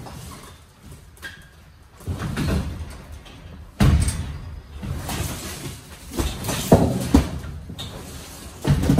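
Loaded wire roll cages being pushed and slid across a trailer floor: metal cages rattling and rolling in irregular shoves, with a loud clank about four seconds in and several sharp knocks near the end.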